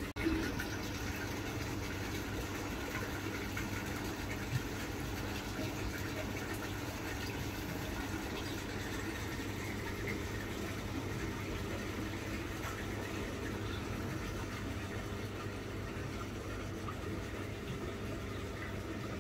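A steady low mechanical hum with a faint wash of water noise. A brief dropout comes right at the start, and a single click about four and a half seconds in.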